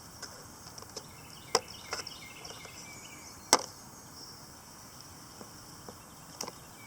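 A few sharp, separate clicks and knocks as the air filter cover on a Briggs & Stratton lawn mower engine is opened and the filter taken out. The loudest knock comes about halfway through.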